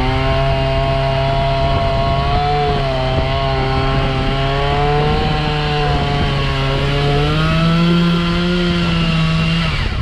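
Chainsaw running at high revs, its pitch steady with small wavers, rising a little near the end, then cutting off suddenly.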